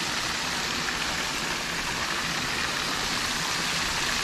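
Steady hiss of water spilling over a low concrete weir into the creek, even and unbroken.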